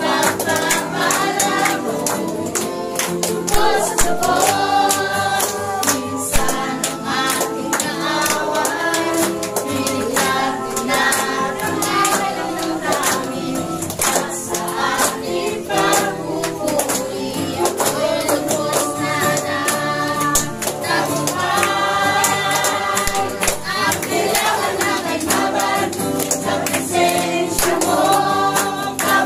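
Congregation singing a Tagalog praise song together over musical accompaniment, with hands clapping in a steady beat.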